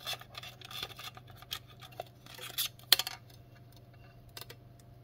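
A thin plastic film scraping and rasping as it is worked through softened adhesive to separate a Redmi 10C's display from the phone frame. It comes in short strokes, with a sharp click about three seconds in.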